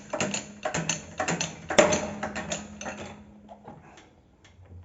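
Quick, sharp metallic clicks from hand tools working the new rubber bushing into the rear suspension arm, about four or five a second. They stop about three seconds in, leaving a few faint knocks.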